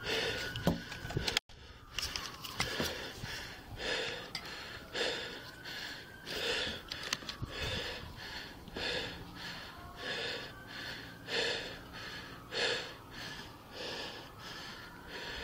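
A person breathing heavily and fast, close to a body-worn camera's microphone, about one breath a second.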